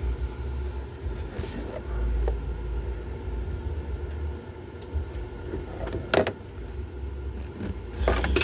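Low rumbling hum from lifting equipment letting the vehicle or engine back down, coming and going in stretches. A couple of sharp clanks come near the end.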